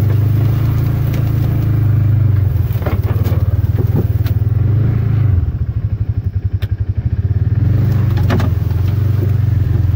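Engine of a Ranger side-by-side utility vehicle running as it drives through tall weeds, with a few sharp knocks and clatter from the front-mounted plow and half-drum over bumps. About five and a half seconds in, the engine note changes to a quick, even pulsing.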